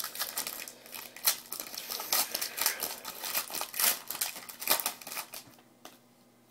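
A trading-card pack wrapper crinkling and tearing as a pack is opened, with cards rustling in the hands: a dense run of crackles and clicks that dies away about five and a half seconds in.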